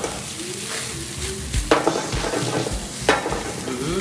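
Ground pork and tomatoes sizzling in a wok as they are stir-fried with a wooden utensil, with two sharp knocks of the utensil against the pan, one about halfway through and one near the end.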